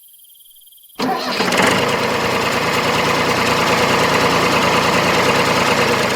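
An engine starts abruptly about a second in and runs steadily at a constant speed.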